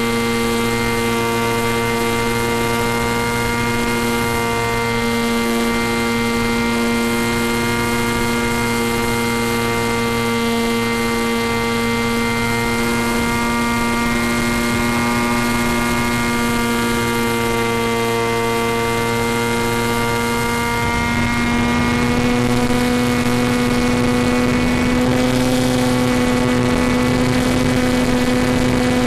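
Electric motor and propeller of a small RC FPV plane running steadily in flight, a continuous whine with a low hum under it. A little over two-thirds of the way through, the pitch rises slightly and it gets a little louder.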